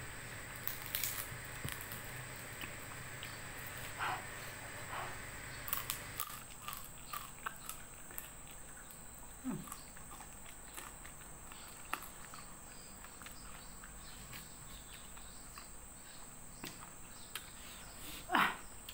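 Close-up eating sounds: chewing and lip smacks with scattered small clicks and crackles as dried, fried salted fish is torn apart by hand and eaten. A steady high-pitched tone sits in the background.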